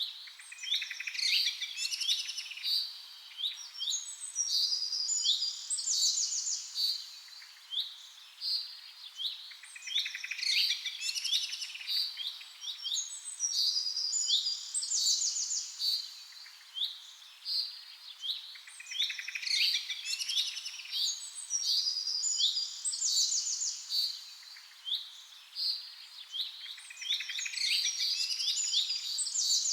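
Small birds chirping and trilling in quick high-pitched phrases, the same passage of calls coming back about every nine seconds.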